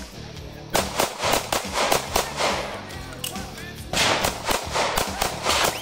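Two rapid strings of pistol shots, the first starting just under a second in and the second about four seconds in, as a shooter runs a practical pistol competition stage. Background music plays underneath.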